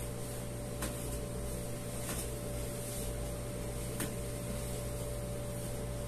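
Steady mechanical room hum, with a few faint clicks about one, two and four seconds in.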